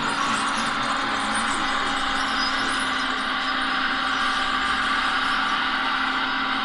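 Radio-controlled scale construction models working: a steady whirring hum from their small motors and hydraulics as the model excavator moves its arm and bucket and a model tractor drives past.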